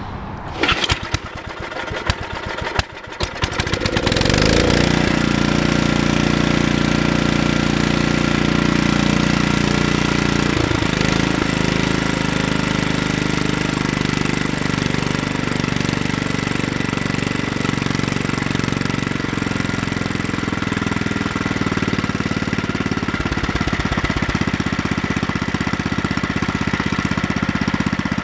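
Kohler Magnum 8 single-cylinder engine on a Troy-Bilt rototiller starting cold on choke: a few cranking strokes, then it catches about four seconds in and runs steadily.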